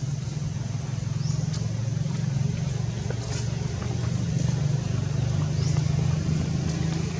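A steady low hum of a running engine, with a couple of brief high chirps over it.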